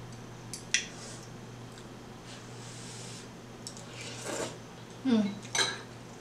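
Eating sounds from a bowl of noodle soup: a couple of light clicks of chopsticks and a fork, then noodles slurped off a fork about four seconds in. Two short vocal sounds follow just after.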